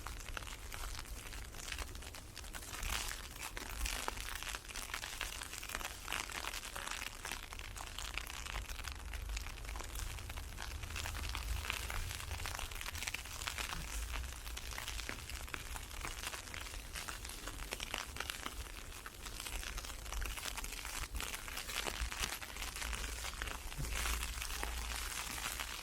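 Dense crackle of wind-blown ice pellets ticking on an open umbrella, with a low rumble underneath.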